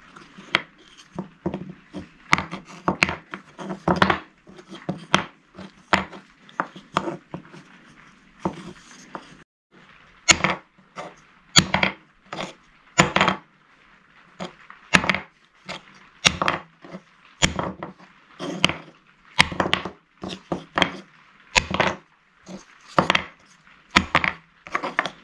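An uneven series of sharp knocks, roughly two a second, with a brief break about nine and a half seconds in.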